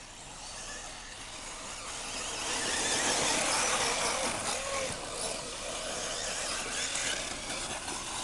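Electric 1/8-scale RC buggies racing on dirt: the whine of their electric motors rising and falling in pitch over a hiss of tyres on loose dirt. The sound swells about two and a half seconds in as the cars come closer.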